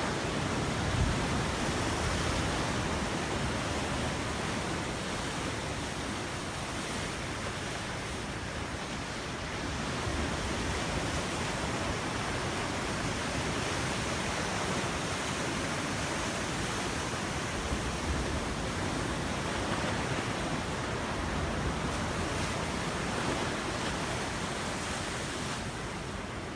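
Ocean surf breaking and washing ashore in a continuous rush, with wind rumbling on the microphone.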